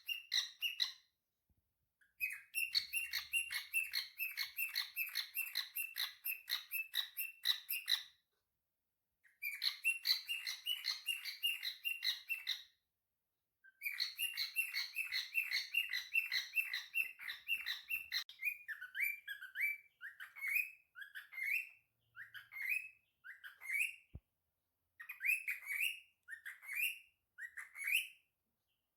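Cockatiel chirping: several runs of quick repeated chirps, about five a second, separated by short pauses, then single chirps that slide upward, roughly one a second.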